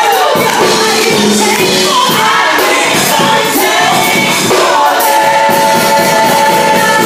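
Live gospel music: a vocal group singing long held notes over instrumental backing with a steady beat.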